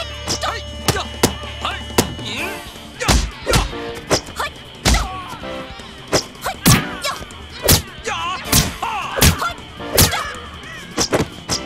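Dubbed fight sound effects: more than a dozen sharp punch, kick and weapon hits at an uneven pace, with swishing glides between them.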